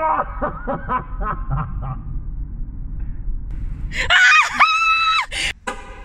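A man laughing in short bursts. About four seconds in there is a loud high-pitched squeal lasting about a second, then a brief knock.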